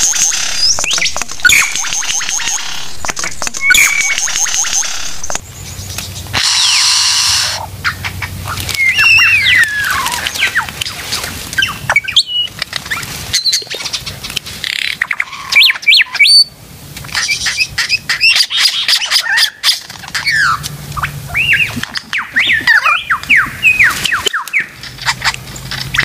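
Male superb lyrebird singing while displaying: a rapid, varied run of whistles, sweeping notes and clicks, with a brief hiss about six seconds in.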